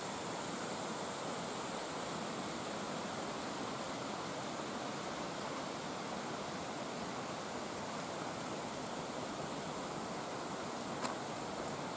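Steady rush of flowing water from a mountain stream and waterfall, with one short click near the end.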